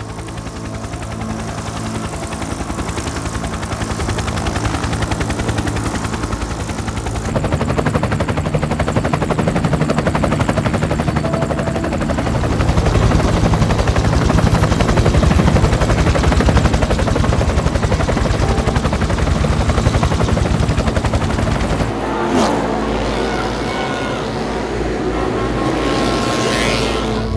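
Helicopter rotor chopping rapidly and steadily, growing louder about seven seconds in. About 22 seconds in, a speedway motorcycle's engine takes over, revving with its pitch rising and falling.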